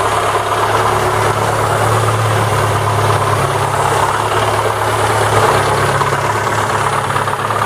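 MeMZ 317 1.4-litre petrol engine idling steadily, its valve clearances set tight (0.15 mm intake, 0.20 mm exhaust) to quiet the valvetrain. Through it runs a dull knock that the mechanic places in the cylinder block rather than the head.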